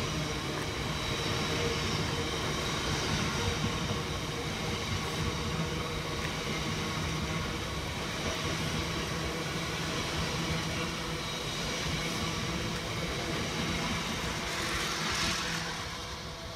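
Biomass hopper wagons of a freight train rolling past, a steady rumble with the rattle of wheels on rail. The sound falls away near the end as the last wagon passes.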